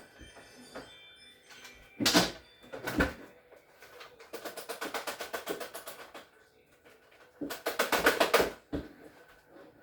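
Two sharp knocks, then two runs of rapid ratcheting clicks, about ten a second, the first lasting about two seconds and the second about one: a driver working a screw in a refrigerator's damper assembly.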